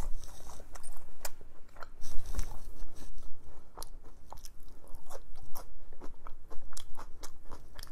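A person chewing a mouthful of crunchy fries close to the microphone, with irregular crunches and wet mouth clicks and a low bump a couple of seconds in.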